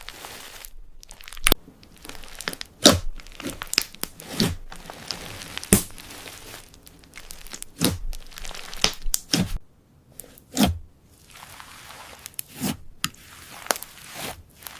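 Slime being stretched and squeezed by hand, giving irregular crackling pops and tearing sounds, one or two a second.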